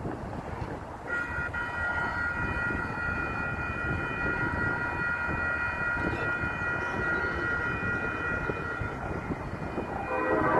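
Railroad grade-crossing bell starts ringing about a second in as the signals activate, a steady high tone held over wind rumble on the microphone. Near the end a freight locomotive's horn begins to sound from the approaching train.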